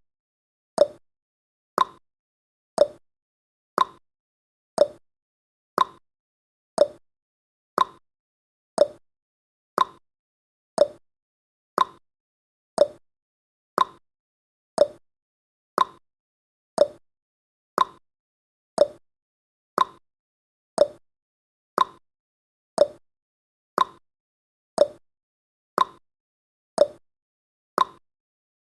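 Timer tick sound effect: one short, sharp tick each second, evenly spaced with silence between, counting off the seconds of the countdown.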